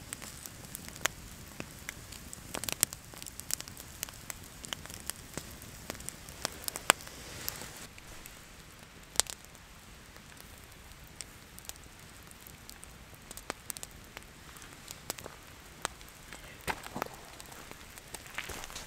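Campfire crackling: a low steady hiss with irregular sharp pops and snaps.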